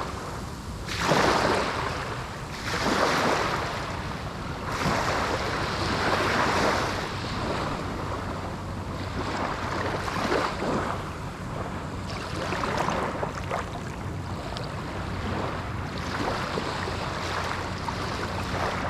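Small Atlantic waves breaking and washing up a sandy shore. They come in surges a second or two apart, then settle into a steadier wash in the second half.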